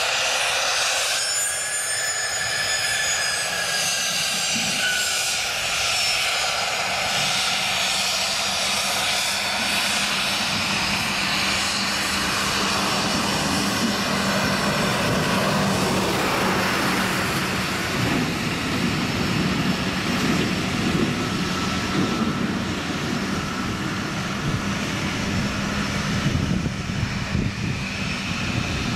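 Embraer Phenom 100 business jet's twin turbofan engines: a high whine early on, then a deeper, rougher rumble that builds through the middle and later part as the jet taxis onto the runway and moves off.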